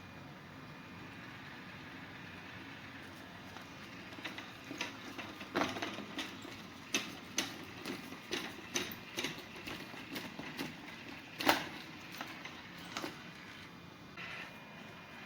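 Irregular sharp clicks and knocks of a 1/12-scale RC crawler's hard parts striking rock, starting about four seconds in, with one louder knock near the end, over a faint steady hiss.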